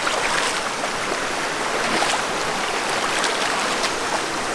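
River water running over rocks: a steady rush of water.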